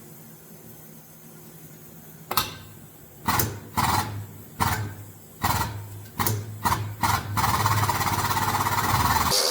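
A run of about eight sharp metal knocks, roughly two a second, over a steady low machine hum. From about two-thirds of the way in, a steady power-tool noise takes over and grows louder.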